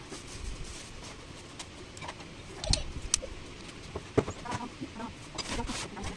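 Tableware being shifted on a stainless-steel table: a few clinks and knocks as a plate, a bottle and a pot are set down. The sharpest knock comes about four seconds in.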